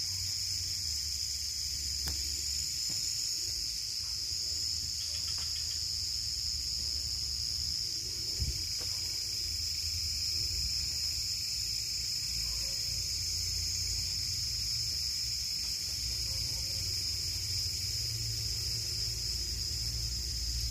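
Steady chorus of night insects: a continuous high-pitched trill with a low rumble underneath and a single short knock about eight seconds in.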